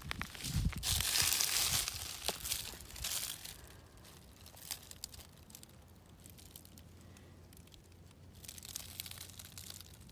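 Dry leaves and brush crunching and rustling as someone moves through them on foot. It is loudest about a second in, quieter crackles follow, and it rises again near the end.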